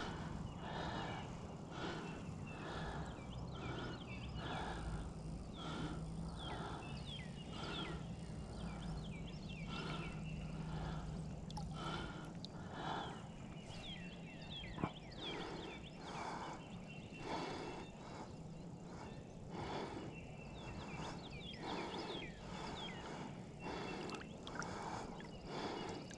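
Water sloshing and lapping around a large striped bass held at the surface beside a boat's hull while it is revived for release, in soft splashes about once a second, over a steady low hum.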